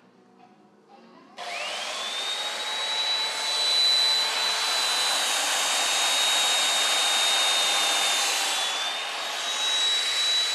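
A high-speed motor starts about a second and a half in: its whine climbs quickly and then holds steady over a loud rushing noise, dipping slightly near the end, and it shuts off abruptly at the end.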